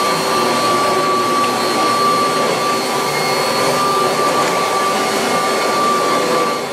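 A 1986 Kirby Heritage 2 upright vacuum cleaner running steadily, with a constant high-pitched motor whine over the rush of air. Right at the end it is switched off and the whine starts to fall away.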